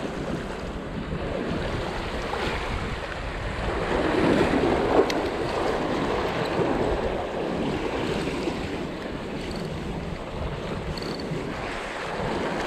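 Sea waves washing and splashing against concrete tetrapods, with wind buffeting the microphone. The wash swells about four seconds in, and a single sharp click sounds about a second later.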